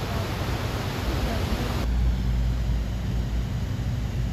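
Steady low rumble of a tour boat's engine under a rushing hiss of waterfall and wind; a little under two seconds in, the hiss drops away sharply, leaving the low engine drone.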